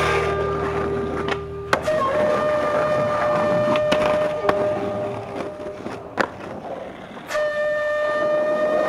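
Skateboard wheels rolling on pavement, with three sharp clacks as the board strikes the ground and a curb ledge, over long held notes of a wind-instrument-like background music track.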